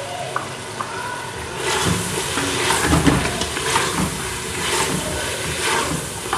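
Mutton, onions and spices sizzling over high heat in an aluminium pressure-cooker pot, being browned dry for bhuna gosht. About a second and a half in, a wooden spatula starts stirring. The sizzle swells, with a scrape about once a second.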